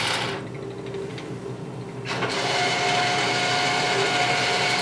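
Spiral vend motor of an Automatic Products Studio 2 snack vending machine. A steady running sound drops away just after the start, and about two seconds in a motor starts and runs steadily with a high, even whine. The control board is spinning the spiral motors at random during its homing scan, which the technician puts down to a home switch error or something interfering with the board.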